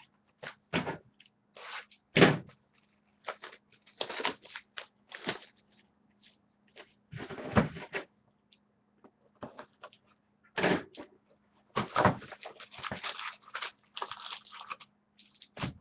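Trading card packs and their cardboard box being handled on a table: an irregular run of short rustles, taps and knocks.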